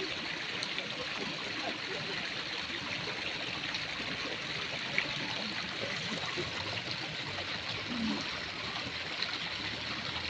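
Steady rushing noise like running water, with a single sharp click about five seconds in.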